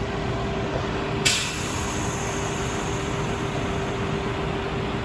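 Crane truck engine running steadily with a constant hum, and a sudden hiss of air about a second in that fades away.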